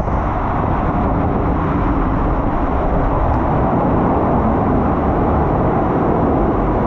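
Steady, loud rumbling rush of water on a rider sliding down a water-park slide.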